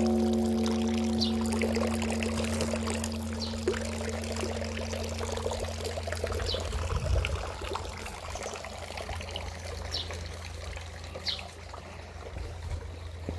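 Large bronze Buddhist temple bell (beomjong) ringing after a single strike, its tones fading over about six seconds while a deep low hum lingers on, as struck slowly during the evening service. Water trickles steadily underneath, with faint high chirps now and then.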